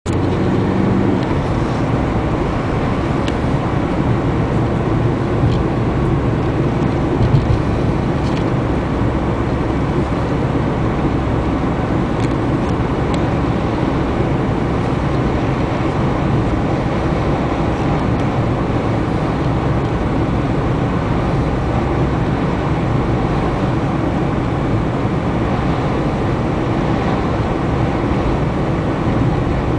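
Steady road noise inside a moving car's cabin: engine and tyres on asphalt, with a few faint ticks.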